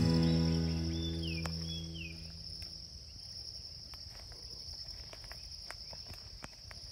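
A steady high-pitched drone of insects, with the tail of a music track dying away over the first two seconds. About a second in come two short falling whistled notes, and a few faint clicks.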